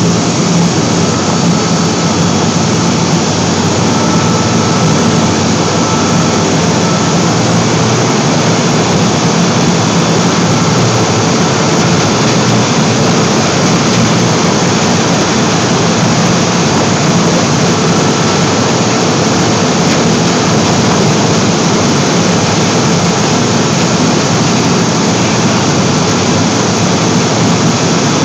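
Aluminum seine skiff's engine running steadily at high power under heavy load while the boat pulls hard against a tow line tied to a piling, its wash churning the water behind.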